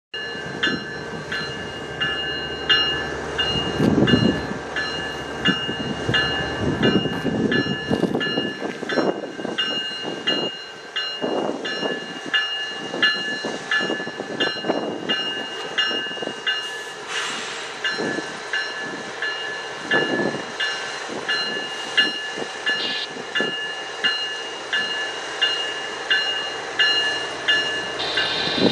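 CN freight train led by GE ES44AC and ET44AC diesel locomotives approaching and passing, the engines and rolling wheels giving an uneven low rumble. A bell rings steadily over it, about one and a half strikes a second.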